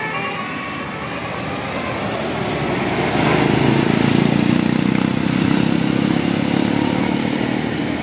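A large tour coach's engine and tyres passing close by on a hill road, growing louder about three seconds in and staying loud for several seconds as it goes past.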